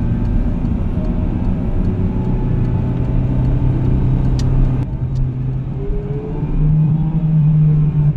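Gasoline car driving, its engine hum and road rumble heard from inside the cabin. The engine note rises in pitch about six and a half seconds in.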